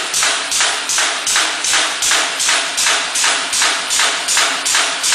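Automatic eccentric punching press with air feed, toothing a band saw blade strip: a steady run of sharp, even punching strokes at a little under three a second, each stroke punching one tooth.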